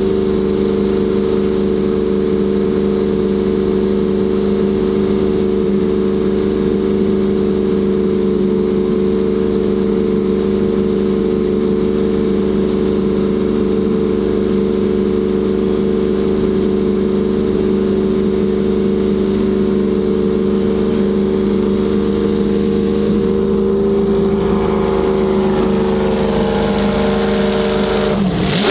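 Lamborghini Miura SVR's V12 engine running steadily at a constant engine speed, its pitch held level throughout.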